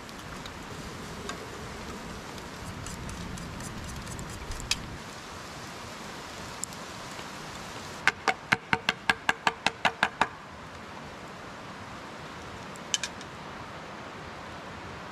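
Steady outdoor background hiss. A little past halfway comes a quick, even run of about a dozen sharp pitched clicks lasting about two seconds.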